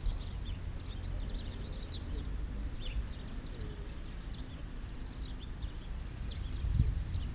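Small birds chirping, many short high chirps that drop in pitch, several a second, over a steady low rumble. A low thump comes near the end.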